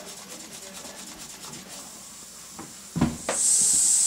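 Robert Fulton toy steam engine's tiny oscillating engine running with a faint, rapid rhythmic chuff. About three seconds in there is a short knock, then the boiler's tiny steam whistle is opened and gives a steady, very high, thin hiss of steam.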